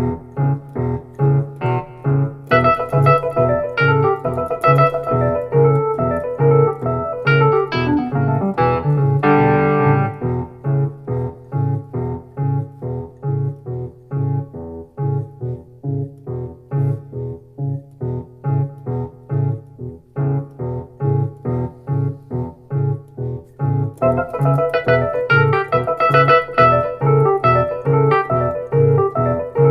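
Roland RD08 digital stage piano playing its Wurlitzer electric piano voice, tone-shaped with boosted bass, a little extra treble and a lowered delay effect. A steady, repeating low bass figure runs under chords and right-hand runs.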